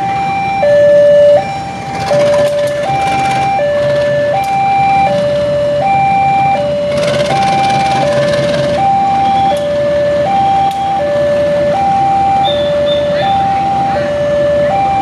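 Railway level-crossing warning alarm sounding a steady two-tone electronic signal, high and low notes alternating about every three-quarters of a second, over a low rumble. A loud rushing noise comes in about a second in, and again for a couple of seconds around the middle.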